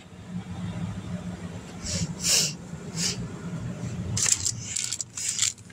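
Handling noises as small toys are moved and set in place: several short rustles and scrapes over a steady low hum.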